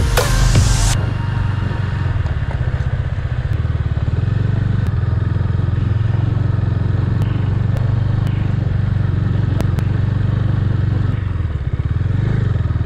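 KTM Duke 390's single-cylinder engine running steadily as the motorcycle is ridden over a rough dirt track, with scattered clicks and clatter. Its level dips briefly near the end.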